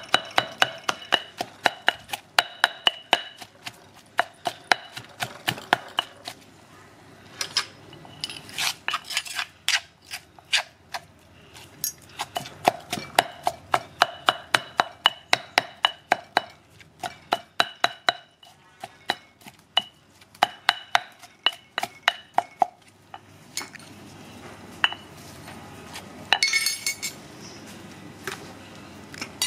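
Stone pestle pounding in a granite mortar, grinding herbs and spices into a paste: steady ringing knocks at about three strokes a second, with a few short pauses. The pounding stops a few seconds before the end.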